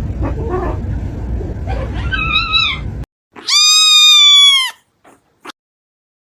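Cat meowing: a short wavering call over background noise, then one loud, long meow that falls in pitch at its end, followed by two faint clicks.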